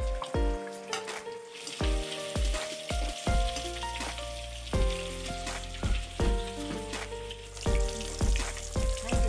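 Fish pieces sizzling as they deep-fry in hot oil in a kadai, the sizzle growing louder about a second and a half in. Background music with a steady beat, held melody notes and a bass line plays over it.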